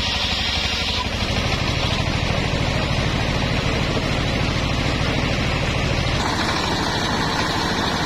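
Horizontal single-cylinder diesel engine driving a circular saw blade through a belt, running steadily with a pulsing beat. At the start the blade finishes ripping a log, with a hissing cutting noise that fades about a second in, leaving the engine and the free-spinning blade. About six seconds in the sound shifts as the load or engine speed changes.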